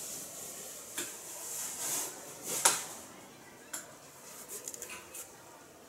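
Light knocks and clicks of something being handled: one about a second in, a sharper one near the middle, then a quick run of small clicks toward the end.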